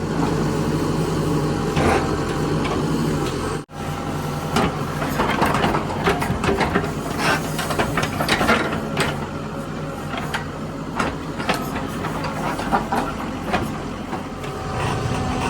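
Mahindra backhoe loader's diesel engine running steadily, with many knocks and rattles through the middle. The sound drops out for an instant about four seconds in.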